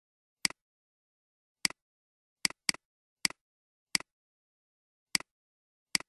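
Computer mouse button clicks, eight single clicks at irregular spacing, each a sharp press followed at once by a softer release.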